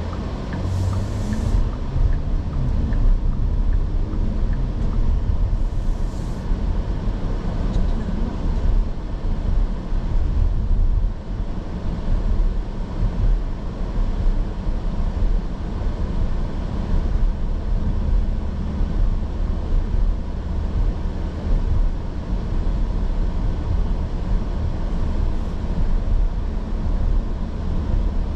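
2024 Porsche Cayenne on the move, a steady low rumble of engine and road noise throughout. Two short high hisses come about a second in and again about six seconds in.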